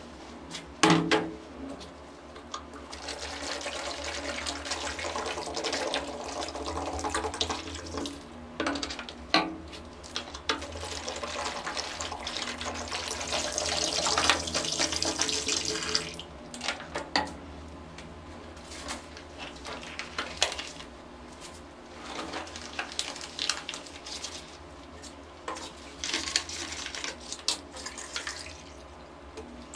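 Water poured from a plastic bottle into a plastic basin holding a shirt: a steady splashing pour from a few seconds in until about 16 s, loudest just before it stops. A sharp knock comes about a second in, and after the pour there are scattered short knocks and rustles of handling.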